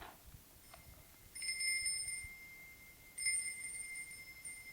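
A small metal bell rung twice, about two seconds apart, each ring lingering and fading slowly.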